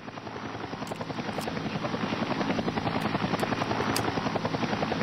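Robinson R44 helicopter running on the ground with its main rotor turning, a rapid steady blade chop that builds steadily in loudness.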